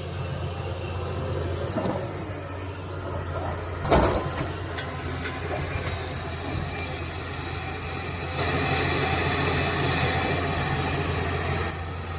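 Heavy excavator's diesel engine running steadily, with one loud clunk about four seconds in. From about eight seconds in, the machine grows louder for some three seconds, with an added higher hiss as it works under load.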